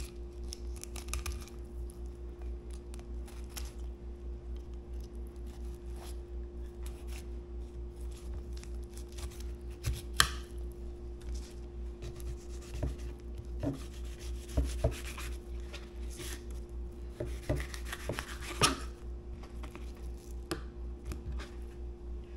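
Fillet knife cutting a porgy into fillets on a plastic cutting board: soft slicing and scraping with scattered sharp knocks and crunches, the loudest about ten seconds in and again near nineteen seconds. A steady low hum runs underneath.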